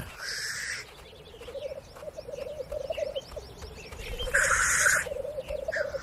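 Male black grouse lekking: a continuous low bubbling, cooing song, broken twice by a loud hissing call, once at the start and again about four and a half seconds in.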